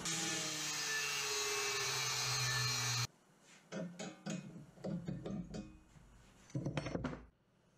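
A steady hiss that cuts off abruptly about three seconds in, then pliers working the end of a square steel tube: scattered metal clicks and scrapes as a peeled-back steel flange is bent outward, with a louder scrape near the end.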